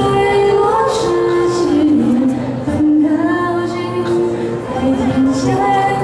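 Young women's voices singing a slow song into handheld microphones, with long held notes that glide between pitches.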